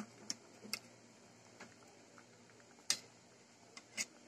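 A metal ladle clinking against a stainless steel cooking pot: five sharp, irregularly spaced taps, the loudest right at the start and about three seconds in.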